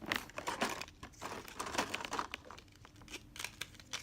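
Plastic packaging from a slime kit being handled, crinkling and crackling in quick irregular bursts, busiest in the first two seconds and sparser after.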